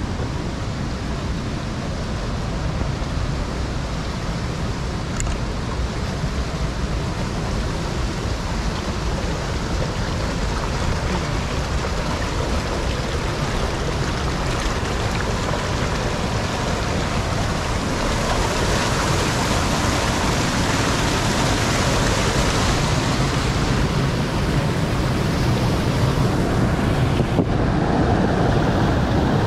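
Steady rush of a mountain creek flowing over granite boulders, with a deep rumble under it; the hiss of the water grows brighter for a few seconds about two-thirds of the way through.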